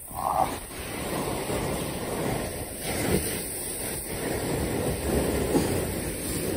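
Wind buffeting the phone's microphone over surf breaking against rocks: a steady, rumbling rush of noise.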